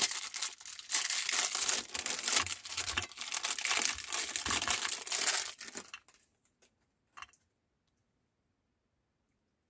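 Meat grinder crushing chocolate-dipped Oreo cookies: a dense crackling and crunching that stops about six seconds in, with a single click about a second later.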